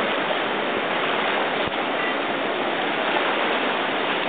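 Whitewater rapid rushing with a steady, even roar of fast water.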